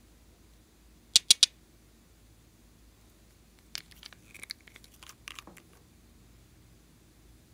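Glass nail-polish bottles handled close to the microphone: three quick sharp clicks about a second in, then a scatter of smaller clicks and scrapes in the middle as the screw cap is twisted off the purple bottle.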